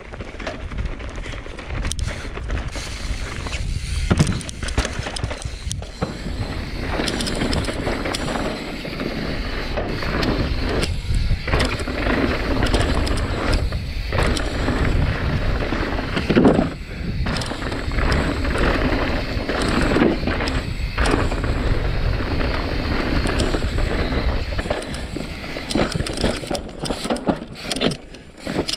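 Santa Cruz Bronson mountain bike ridden down a rocky trail: tyres running over rock and dirt, the bike knocking and rattling over the bumps, with a heavy wind rumble on the microphone. The noise starts abruptly as the riding gets going and keeps up throughout, with sharper knocks every few seconds.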